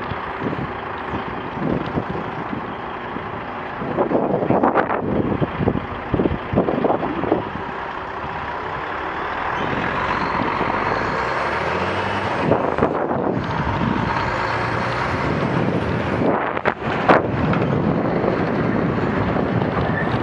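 Lorry diesel engines and tyres running close alongside, over steady traffic and road noise, with clusters of short knocks and rattles about four to seven seconds in, around twelve seconds, and again near sixteen to seventeen seconds.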